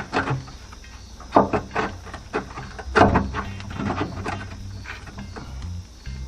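Metal parts of a vertical steel smoker being handled: a series of separate clanks and knocks, the loudest about three seconds in.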